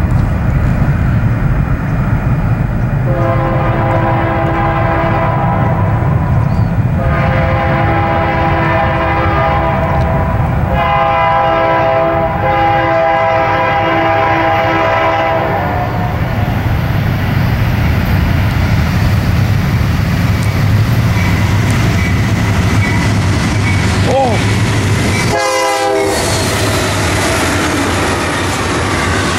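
Diesel freight locomotive's air horn sounding three long blasts as the double-stack train approaches a grade crossing, over the steady rumble of the locomotives. Near the end the sound changes abruptly to the train passing close by, wheels clacking over the rails.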